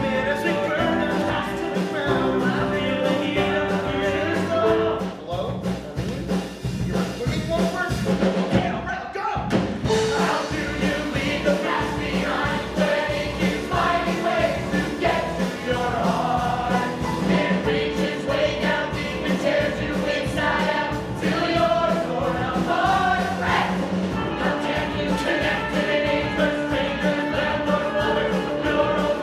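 Rock band playing with several voices singing together in chorus over a steady drum beat, in a stage-musical rock number; the music thins out for a moment about nine seconds in.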